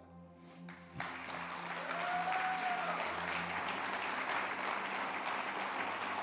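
Congregation applauding, starting suddenly about a second in and holding steady, over soft sustained low music.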